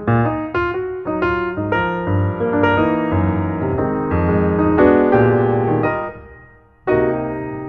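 Background piano music: struck notes and chords, fading away about six seconds in before a new phrase starts near the end.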